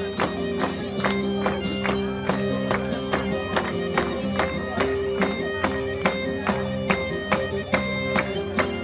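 Traditional folk music on bagpipes, with steady drones under the melody, and a quick, even drum beat.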